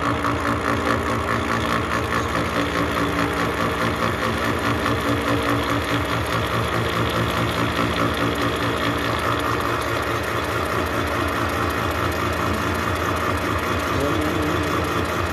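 Milling machine cutting a spur gear tooth space in a Duralumin blank with a disc-shaped gear-form cutter: steady running of the spindle, with a rapid, even ticking of the cutter teeth through the metal.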